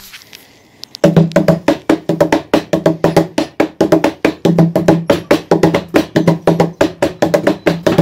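Hands drumming a fast, steady beat on stacked white plastic buckets, each slap giving a hollow, pitched thump; it starts about a second in.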